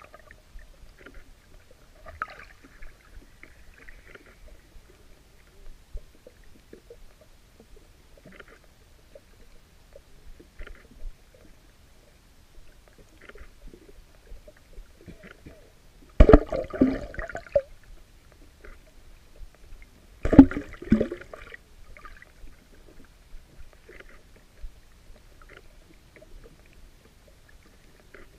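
Underwater sound picked up by a submerged camera: faint scattered clicks and crackles, broken twice about halfway by a loud burst of churning noise lasting a second or two, the bursts about four seconds apart.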